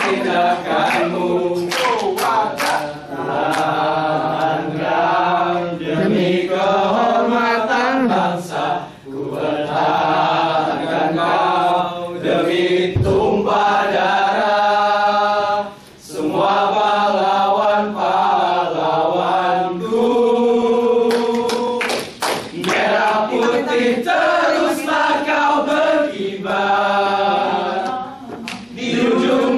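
A group of young men singing together as a chorus without instruments, with long held notes and a brief pause about halfway through. Sharp percussive hits come now and then.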